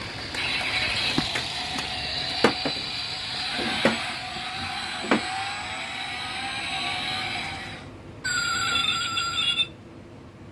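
Battery-operated toy truck's sound chip playing an engine-revving effect through its small speaker, its pitch rising in waves, with several sharp clicks. About eight seconds in it switches to a steady electronic horn tone lasting over a second.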